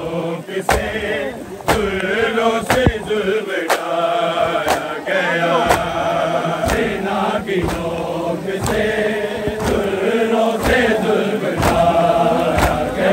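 A crowd of men chanting a lament in unison while performing matam, beating their chests together, with the massed slaps landing in time about once a second.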